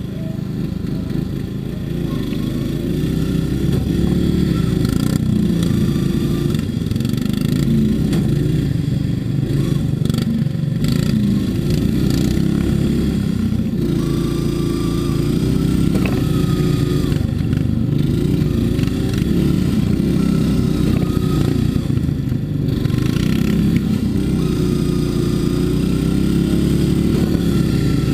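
Modified racing lawn mower's engine heard from the driver's seat, revving hard with its pitch rising and falling again and again as it is driven around the dirt track; it gets louder over the first few seconds.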